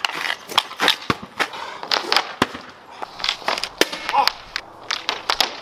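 Hockey stick clacking against street hockey balls, the concrete and a plywood shooting pad during stickhandling and shooting. It is a quick, irregular run of sharp clacks, about three or four a second.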